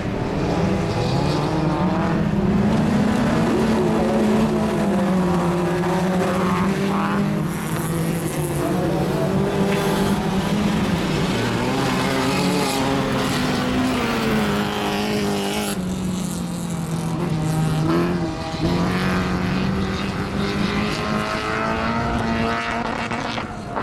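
Several autocross cars racing on a dirt track, their engines running hard together, with the engine pitch repeatedly rising and dropping as the cars accelerate and lift through the bends.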